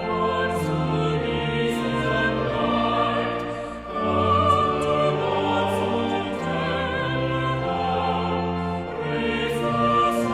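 Music: a choir singing slow, sustained chords with instrumental accompaniment, the bass moving to a new note every second or so.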